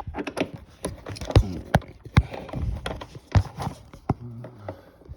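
Irregular metallic clicks and knocks from a bolt and the seat rail of a Porsche 987 as the seat-mounting bolt is started into its threads by hand.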